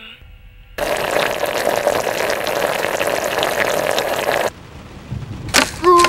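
A pot of crustaceans boiling hard in broth: a dense, crackling bubbling that starts abruptly about a second in and cuts off sharply after a few seconds. A few sharp clicks and a short pitched squeak follow near the end.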